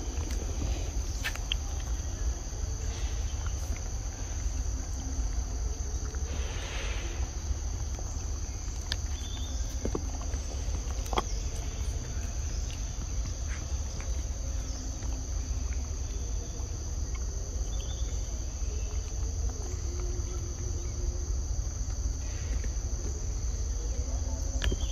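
Steady high-pitched drone of an insect chorus, with a low rumble underneath and a few faint clicks and taps scattered through.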